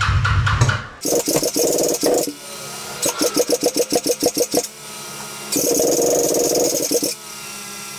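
Background music cuts off about a second in; then the Kawasaki VN750's V-twin is cranked by its electric starter in several bursts of one to two seconds with short pauses between them, one burst with a clear rapid pulsing of compression strokes. The engine turns over but does not catch; the owner believes the ignition timing is off because the newly installed pickup coils need to swap places.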